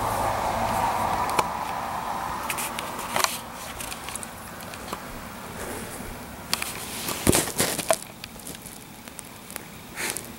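A dog rolling around on the floor: steady rubbing and rustling for the first few seconds, then scattered scuffs and knocks, the loudest cluster about seven seconds in.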